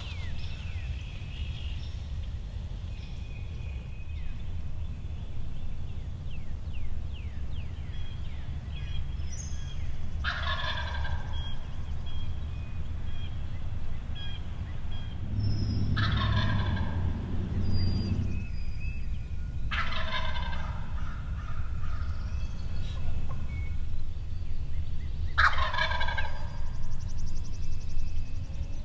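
Wild turkey gobbler gobbling four times, several seconds apart. Small birds chirp faintly and a steady low rumble runs underneath.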